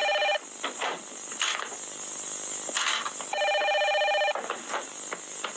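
Telephone ringing with an electronic trilling ringer in rings of about a second: one ring ends just as the sound begins, and a second full ring comes about three and a half seconds in. Faint knocks and rustles sit between the rings.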